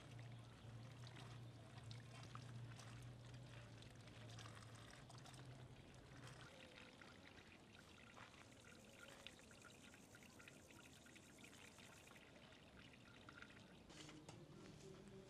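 Near silence: faint outdoor ambience with a light trickling, water-like sound and a low steady hum that stops about six seconds in.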